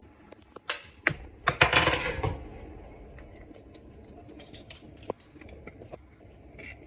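A few sharp clicks and clatters of small hard objects knocking together in the first couple of seconds, then faint scattered little clicks.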